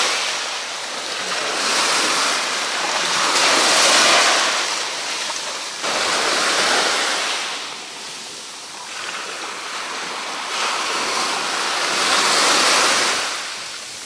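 Small storm-stirred waves breaking and washing up a sandy beach, a rushing surf that swells and fades in several slow surges, with some wind.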